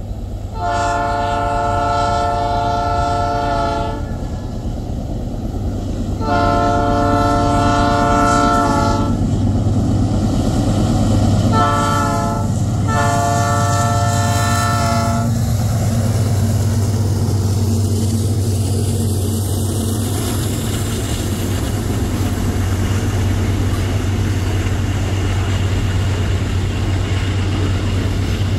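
Diesel locomotive horn sounding four blasts, long, long, short, long. Then the steady sound of the locomotive's engine and the double-stack container wagons rolling past on the rails.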